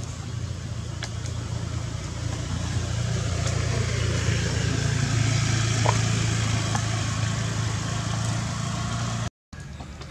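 Low, steady engine hum of a motor vehicle, growing louder through the first half and dropping out for an instant near the end.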